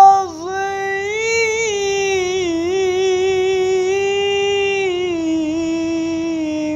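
A high voice chanting Quran recitation in the melodic tajweed style, drawing out one long held note with slow wavering ornaments and a slight fall in pitch near the end.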